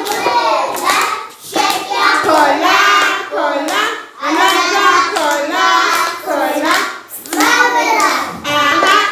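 Young children singing a song in sung phrases, with hand claps over it.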